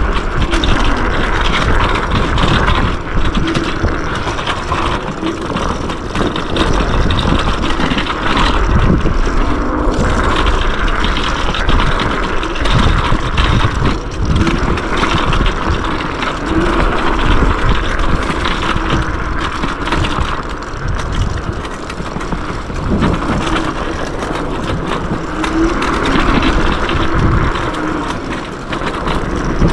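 Yume X11 electric scooter ridden fast down a dirt trail: a continuous rumble of tyres over the ground, with the scooter rattling over bumps.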